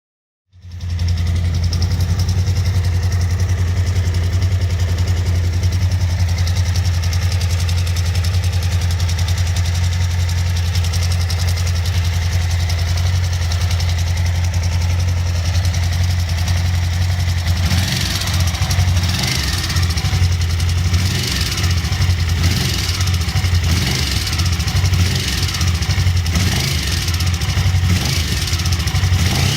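Suzuki V-Strom DL1000's V-twin engine idling, with the ticking sound the owner is asking about. About two-thirds of the way in the engine note turns rougher and brighter.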